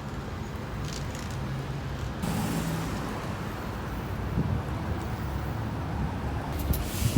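Street traffic noise: a steady rumble of road vehicles.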